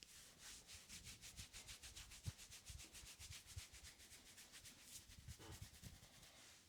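Faint, fast rubbing of hands on hair and scalp during a head massage, in even back-and-forth strokes about seven a second that die away about five seconds in, with a soft bump about two seconds in.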